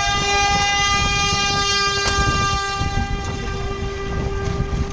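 A horn sounds one long steady note, the start signal right after a countdown, over rough low background noise. The note fades near the end.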